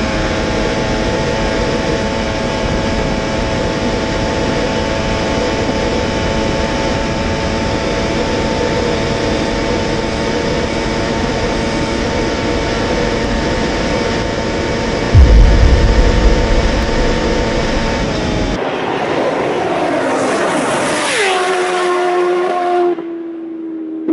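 Kawasaki Ninja H2's supercharged inline-four held at steady high revs at top speed, mixed with heavy wind rush and a loud gust of wind buffeting about 15 seconds in. After a cut near the end, a motorcycle engine is heard, its pitch gliding down and then holding steady.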